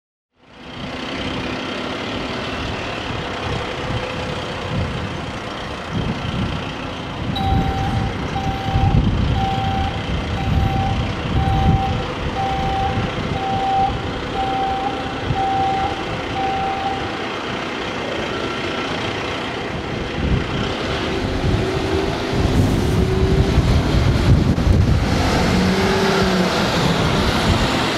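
A fire engine's diesel engine running as it manoeuvres, with its reversing alarm beeping about once a second for around ten seconds, starting several seconds in. The engine grows louder near the end as the truck comes closer.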